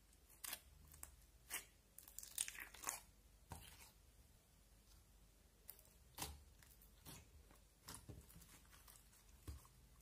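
Fingers pressing, squeezing and stretching a sticky slime mixed with small chunks, making faint sticky crackles and pops, with a dense run of them about two to three seconds in and scattered single pops after.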